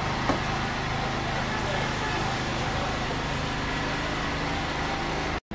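A single knock as a stone is set down on the dough-sealed lid of a large dum pukht cooking pot, over a steady mechanical drone.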